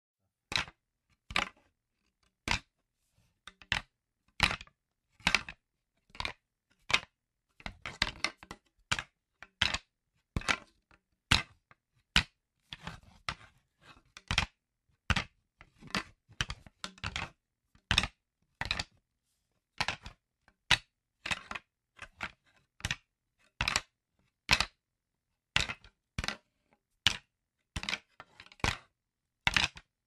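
Two wooden sticks struck against each other: sharp clacks about once a second at an uneven pace, with a few quicker runs of strikes.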